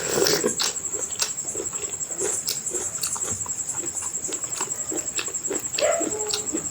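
Close-miked chewing and lip-smacking of a person eating curry and rice: irregular short wet smacks and clicks. A steady faint high whine runs underneath.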